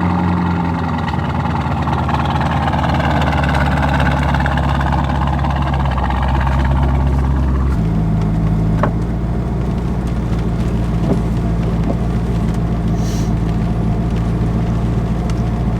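Car engine running steadily, its note changing abruptly about eight seconds in.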